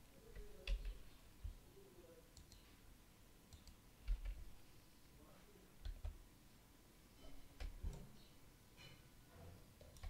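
Computer keyboard and mouse clicks: a handful of short, sharp clicks at irregular intervals, each with a dull low thump, as keyboard shortcuts and mouse buttons are pressed.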